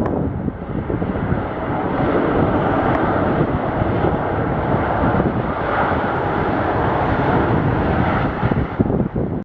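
Jet airliner's engines, a steady rush of noise with no break.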